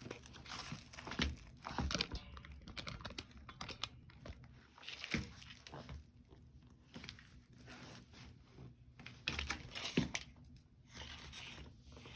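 Packaging being handled: crinkling and tearing, with scattered light clicks and knocks.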